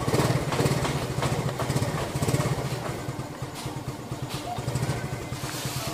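Suzuki underbone motorcycle engine idling steadily.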